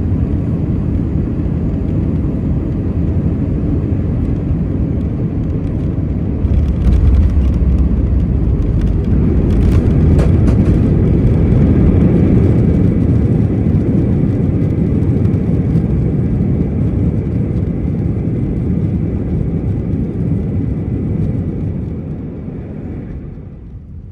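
Inside the cabin of an Airbus A319 landing: a steady rush of air and engine noise. About six seconds in it gets louder as the jet touches down and the wheels rumble on the runway, and the engines then run up with a thin whine as the aircraft brakes. Near the end the noise fades as it slows down.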